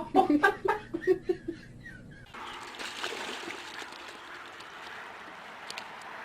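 A short burst of voice-like sounds, then about two seconds in a steady rush of water, like splashing or running water, that lasts to the end.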